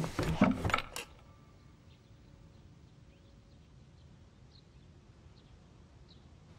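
A small drawer being handled: a quick run of knocks and clicks in the first second as it is pulled and things inside it are moved. After that comes a quiet room with a few faint, short high chirps.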